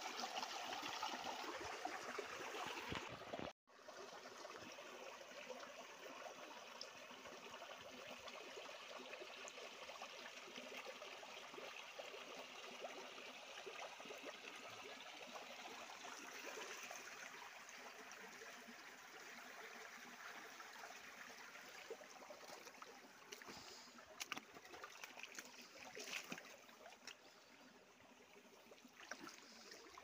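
Small stream trickling over rocks, a faint steady rush of water that cuts out for an instant about three and a half seconds in. Near the end a few scattered clicks sound over it.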